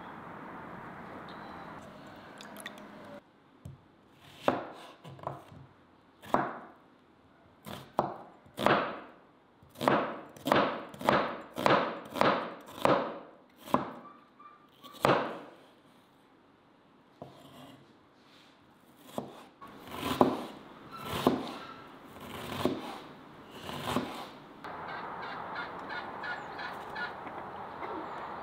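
Knife chopping food on a cutting board: a run of sharp strikes, one or two a second, thinning out for a few seconds in the middle and stopping a few seconds before the end.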